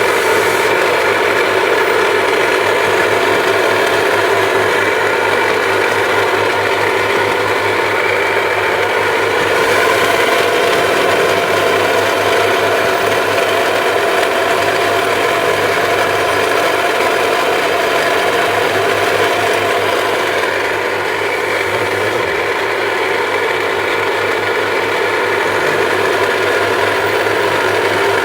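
Electric drill running steadily under load, boring an axle hole through wood. Its tone sags slightly about two-thirds of the way through.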